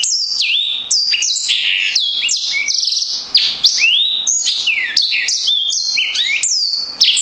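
A bird singing loudly without pause: a fast, continuous stream of varied whistled notes, many sliding sharply up or down.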